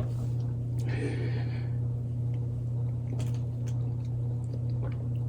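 A steady low hum underlies everything, with a short sip of soda about a second in and a few faint clicks after.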